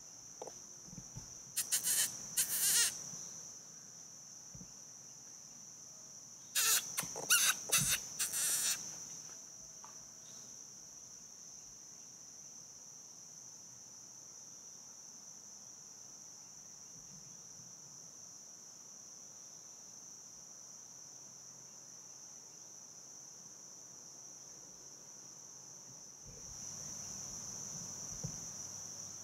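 Steady high-pitched insect chorus of crickets in summer woods. Two loud bursts of several short, sharp sounds cut in about two and seven seconds in, and a soft lower rush swells near the end.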